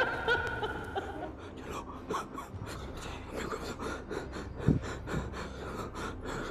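A man panting hard while running, with quick, close-set footsteps and short gasps.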